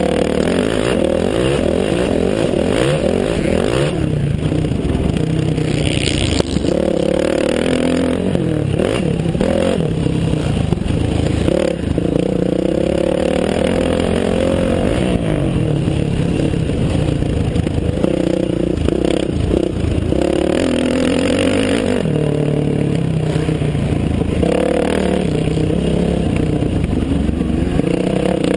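Dirt bike engine revving up and falling back over and over as the rider works the throttle and gears around a motocross track, heard from the rider's helmet camera with a steady rush of wind and scattered knocks.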